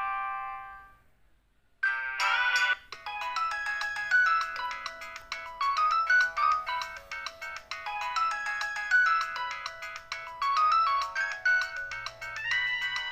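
Samsung SCH-F309 ringtones from its CMX MIDI synth. The last notes of one tune die away in the first second. After a short silence a new polyphonic ringtone starts with a chord and a brief pause, then runs on as a quick, bright melody.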